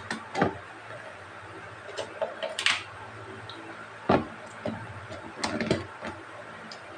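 Clear plastic food container and its lid being handled on a table: a string of plastic clicks and knocks with a short scraping rustle, the sharpest knock about four seconds in.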